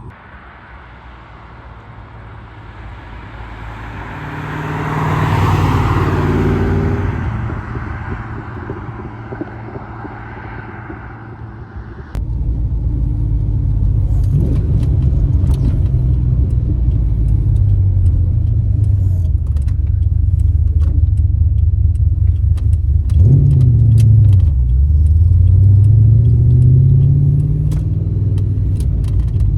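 Holden 5.0-litre 304 V8 in a VS SS Commodore being driven. About five seconds in there is a swell of vehicle noise. From about twelve seconds it is suddenly much louder, revving up and dropping back as it goes through the gears, with light rattles over it.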